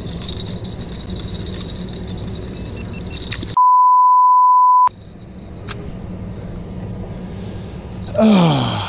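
A steady, loud, single-pitch censor bleep lasting about a second and a half, a little over three seconds in, with all other sound cut out beneath it. Around it there is a steady hiss with a high, even hum, and near the end a man's voice slides down in pitch.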